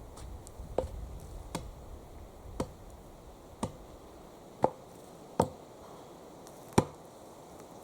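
Axe chopping wood: about seven sharp strikes, roughly one a second, the loudest near the end.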